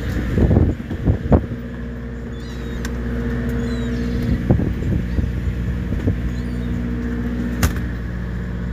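Fishing boat's machinery running with a steady, even hum, with several knocks on deck in the first second and a half, a few more around the middle, and a sharp click near the end.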